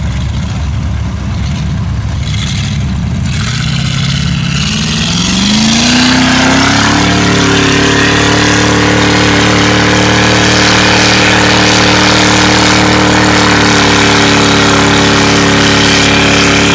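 Lifted Ford Bronco's engine revving up over about three seconds and then held steady at high revs as the buried mud tires spin in deep mud: the truck is stuck.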